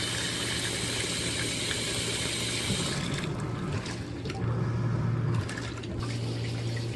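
Giantex compact portable washing machine running its wash cycle: water sloshing and churning in the tub over a steady motor hum. The sloshing stops about three seconds in, and the motor hum swells briefly a little later.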